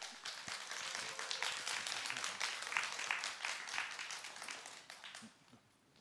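Audience applauding, many hands clapping, dying away about five seconds in.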